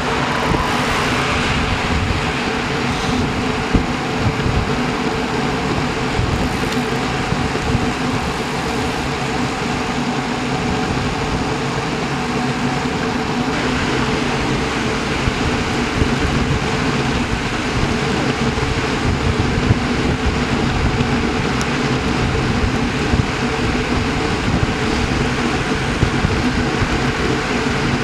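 Steady road and wind noise from a road bike riding in a group at about 30 km/h: tyres humming on asphalt and air rushing past the camera.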